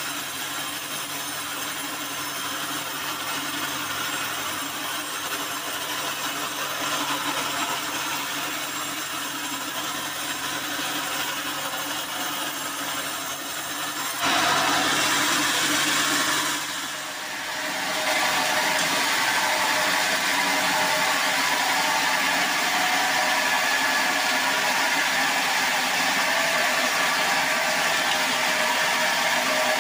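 Band sawmill running and sawing through a hardwood acacia log: a steady saw noise. About fourteen seconds in it gets abruptly louder, dips briefly, then holds steady.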